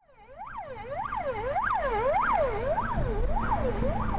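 Police car siren in a fast yelp, the pitch whooping up and down about twice a second, fading in over the first second. A low rumble joins about three seconds in.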